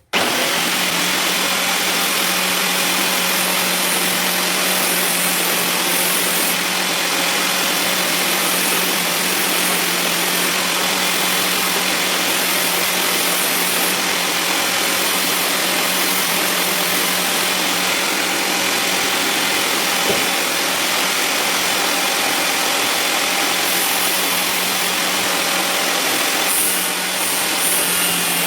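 Angle grinder fitted with a homemade disc sander attachment running at speed: a steady motor hum under a dense, even hiss.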